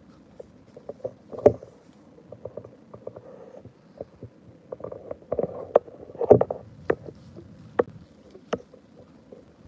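Wet rustling, soft squelches and irregular clicks of someone moving through rain-soaked grass and garden plants, with two louder thuds, about a second and a half in and about six seconds in.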